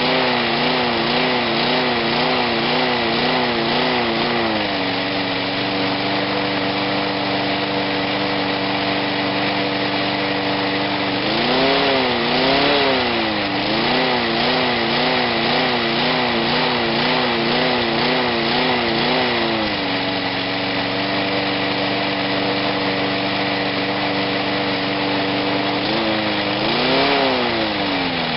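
6 hp Briggs & Stratton single-cylinder mower engine running and hunting and surging: its speed rises and falls about twice a second for several seconds at a time, holds steady in between, and twice swings through a bigger surge. This is the fault the owner complains of at full throttle.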